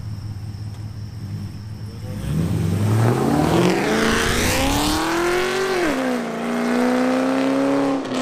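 Car engine idling, then revving up: its pitch climbs for about three seconds, dips around six seconds in, and holds high until it drops off near the end.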